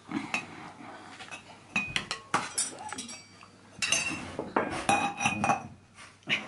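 Metal serving spoon clinking and scraping against ceramic plates and a serving tray as pasta is dished out, a run of sharp clinks, a few of them ringing briefly.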